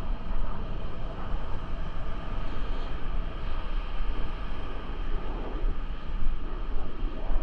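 Wind buffeting a GoPro microphone, a gusting low rumble over a steady rush of ocean surf.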